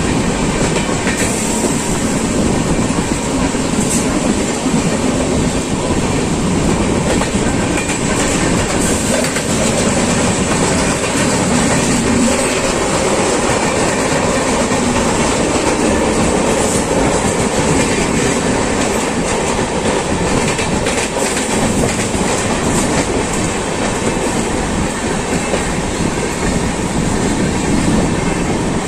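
Two passenger trains running side by side at speed, an EMU local and the Ajmer–Sealdah Superfast Express's coaches: a loud, steady rumble of wheels on rail, with scattered clicks of wheels passing over rail joints.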